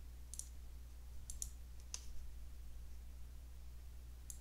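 Faint computer mouse button clicks, about five scattered over a few seconds, over a steady low hum.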